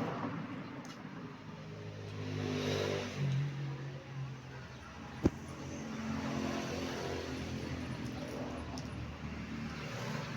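A motor vehicle's engine running and changing pitch, rising and falling. There is a single sharp click about five seconds in.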